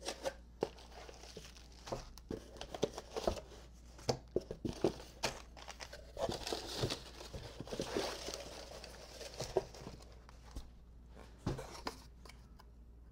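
Plastic bubble wrap and tissue paper crinkling and rustling as parts are unwrapped from a cardboard box, with scattered light knocks and clicks of parts being handled and set down on a wooden table.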